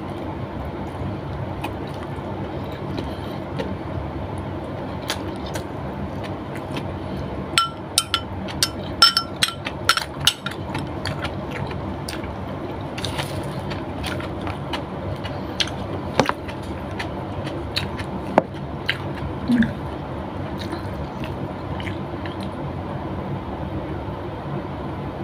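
A person eating by hand close to the microphone: chewing and mouth clicks, with a quick cluster of sharp clicks about eight to ten seconds in and a few single ones later, over steady background noise.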